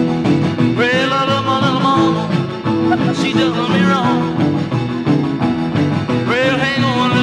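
Background music: a band playing an upbeat song with a steady beat.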